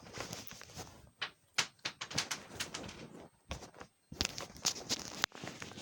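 Slime being squished and worked by hand with large water beads mixed into it: irregular wet squishing with sharp little clicks and short pauses.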